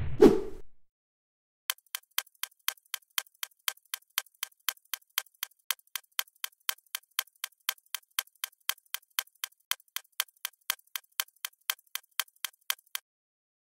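A short whoosh at the start, then a steady run of sharp, evenly spaced ticks, about four a second, lasting some eleven seconds: a ticking sound effect laid under text being written out on screen.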